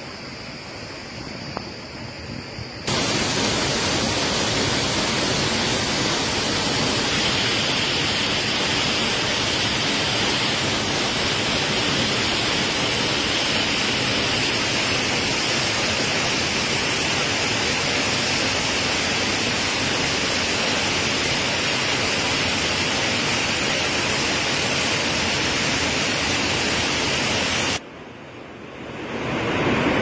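Waterfall pouring into a pool close by: a loud, steady rush of water with no rhythm. It starts suddenly about three seconds in after quieter water sounds, breaks off near the end, and gives way to a stream rushing over rocks.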